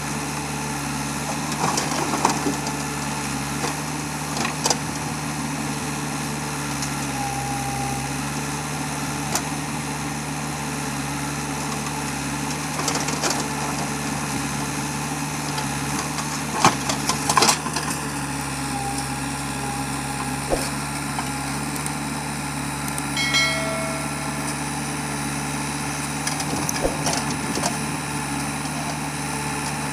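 Diesel engine of a JCB 3DX backhoe loader running at a steady speed while the backhoe digs and loads mud, with a few short knocks and clanks from the working arm and bucket.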